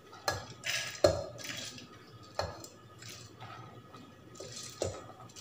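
Soaked, drained urad dal being tipped by hand from a stainless steel pot into a steel mixer-grinder jar: scattered clinks of steel against steel, with the wet lentils rustling as they slide in.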